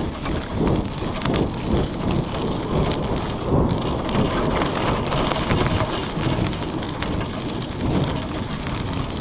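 Wind buffeting the camera microphone while cycling: a steady, gusting rumble.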